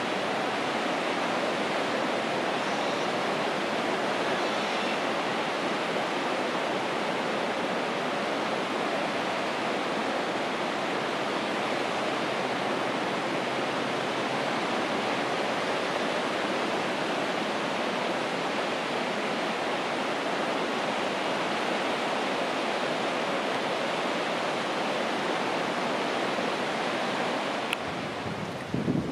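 Steady, even hiss of sea surf washing onto the beach, with no single wave or passing train standing out. The sound changes abruptly near the end.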